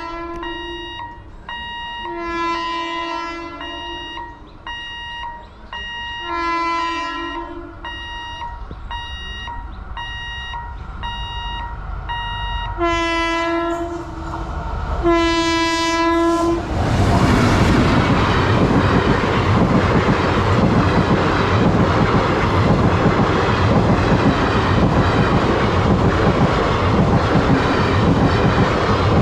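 Express train's locomotive horn sounding five long blasts, the last two close together, as the train approaches. Then the train passes at speed: a loud, steady rush of wheels on the rails with clickety-clack.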